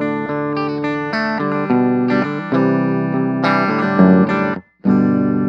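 Electric guitar, a Squier Classic Vibe Telecaster on its bridge single-coil pickup, played with a pick through the clean channel of an Orange Crush 20 amp: a clean, undistorted phrase of picked chords. It breaks off briefly near the end, then a final chord rings out.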